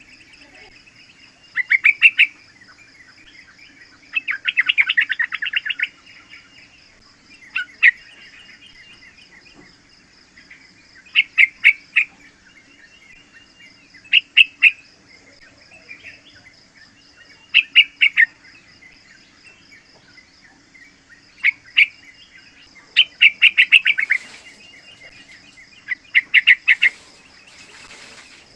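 Young yellow-vented bulbul (trucukan) singing in short bursts of rapid bubbly notes, repeated every one to three seconds. A faint steady high-pitched whine and a low hum run underneath.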